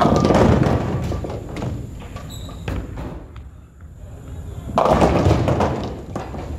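Bowling balls hitting a rack of string-pins, twice: a clatter of pins right at the start and another about five seconds in, with a ball rolling down the lane in between.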